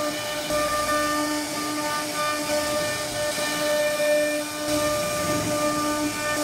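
CNC router spindle whining steadily as its bit cuts a groove into a solid wood panel, with a hiss from the cutting. The whine drops out briefly now and then.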